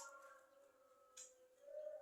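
Javan myna making short harsh, hissy calls: one at the start and another about a second in, then a rising call building near the end.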